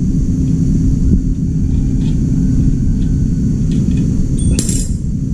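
Steady low rumble with a few faint clicks, and one sharp metallic clank with a short ring about four and a half seconds in, from hands working on the metal finned coil of an air-conditioner indoor unit.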